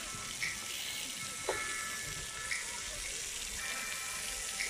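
Splash pad water jets and overhead spouts spraying and pouring onto wet concrete, a steady hiss of falling water.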